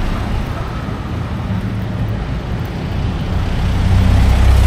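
Street traffic with a motor vehicle's engine running close by, its low rumble growing louder near the end.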